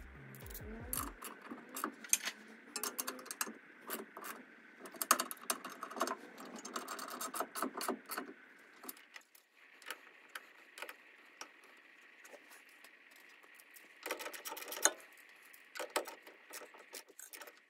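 Rapid metallic clicking of a hand ratchet and clinks of steel tools as coilover mounting bolts are worked. The clicks come in two runs with a thinner stretch between them.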